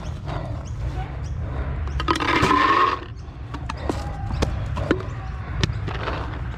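A person shouts loudly for under a second about two seconds in. This is followed by several sharp, irregularly spaced pops of paintball markers firing, over a steady low rumble.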